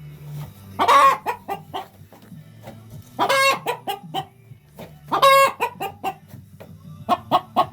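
A hen clucking in short quick notes that break three times into a long, loud, drawn-out squawk. It is a hen's agitated fuss over a nesting box that another hen is sitting in.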